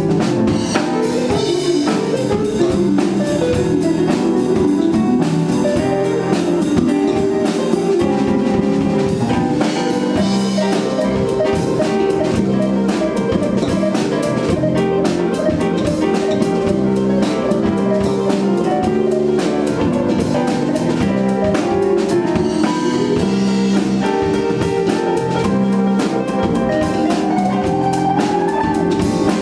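Small jazz band playing live: drum kit, hollow-body electric guitar, electric bass and keyboard together at a steady level.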